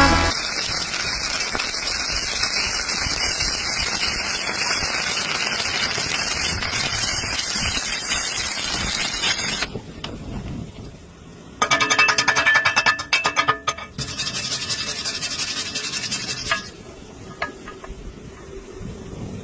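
Stick welding with a coated electrode: a steady crackling sizzle from the arc that stops about ten seconds in. About two seconds later comes a short run of rapid tapping or scraping, then the sizzle returns for a few seconds.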